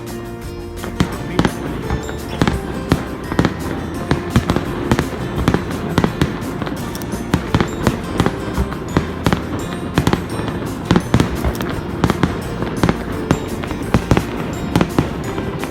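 Fireworks display: a dense, irregular run of sharp bangs, often several a second, starting about a second in, over background music with sustained notes.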